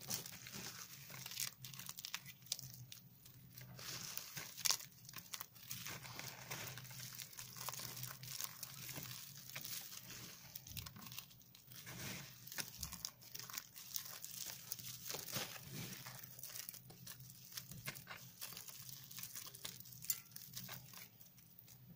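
Dry soap shavings crunching and crackling as a hand scoops, squeezes and sifts through them: a dense run of small crisp crackles, with one sharper crunch about five seconds in. A faint low hum runs underneath.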